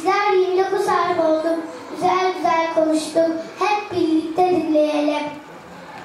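A young girl singing solo and unaccompanied, in held notes that step from pitch to pitch, stopping a little after five seconds in.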